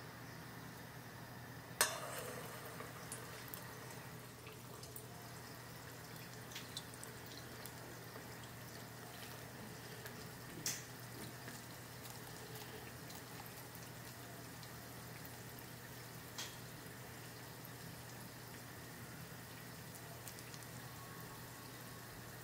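Urad dal fritters frying in hot oil: one sharp splash about two seconds in, with a short burst of sizzling as a shaped dough ring goes into the oil, then faint steady sizzling with a few small ticks and clicks.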